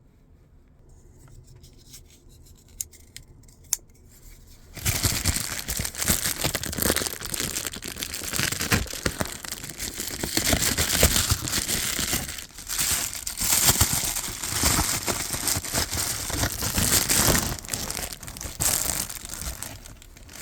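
Packaging being torn open and crinkled by hand. Faint handling with two sharp clicks at first, then from about five seconds in a loud, continuous stretch of tearing and crinkling.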